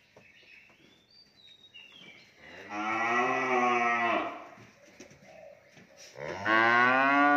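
Cattle mooing: two long, low moos about two seconds each, the second starting about six seconds in, louder, and rising then falling in pitch.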